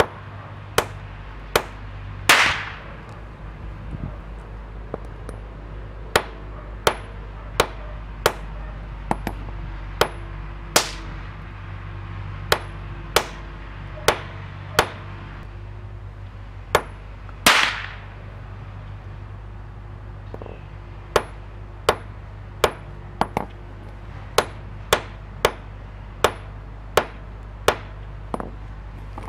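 Small sledgehammer striking drops of MEKP (methyl ethyl ketone peroxide) on a concrete slab: more than two dozen sharp cracks, roughly one a second with a few pauses. Three of them are louder, with a longer tail.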